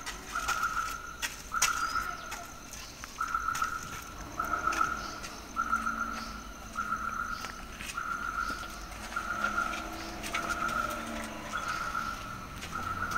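Vehicle reversing alarm beeping steadily about once a second, with short bird chirps scattered through.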